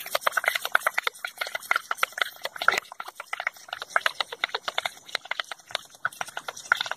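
Air from the balloon of a homemade bottle boat escaping through a straw under the water, sputtering and bubbling in a rapid, irregular run of small pops as it pushes the boat along.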